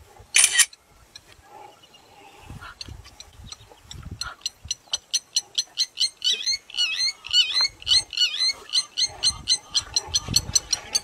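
A bird calling in a fast, even series of short chirps, about four a second, growing louder from about four seconds in. Scattered low thumps sound under the calls, and there is one sharp loud burst just after the start.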